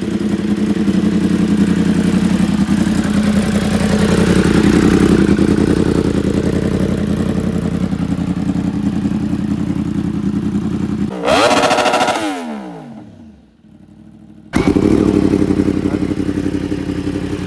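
2016 Yamaha YZF-R1's crossplane inline-four running steadily through an SC Project exhaust. About eleven seconds in it is revved sharply and the revs fall away, then the steady running comes back abruptly.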